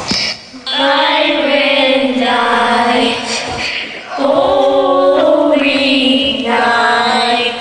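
Several voices singing together in a layered group recording, in two long held phrases, the second beginning about four seconds in.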